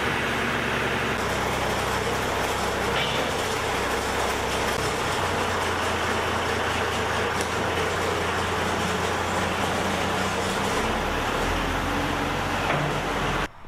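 Farm tractor engine running steadily while it works its front-end loader, the engine speed stepping to a new level a few times. The sound cuts off abruptly near the end.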